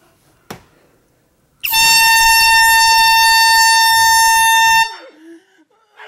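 An air horn blasts once for about three seconds, a single steady piercing tone that starts and cuts off abruptly. A faint click comes about half a second in, before the blast.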